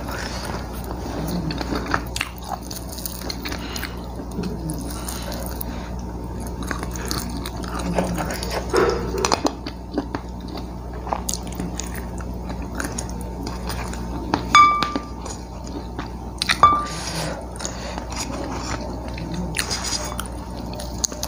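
Close-miked chewing, lip smacks and small clicks of a person eating crispy fried chicken wings off the bone. About two-thirds of the way in, two short high-pitched squeals about two seconds apart are the loudest sounds.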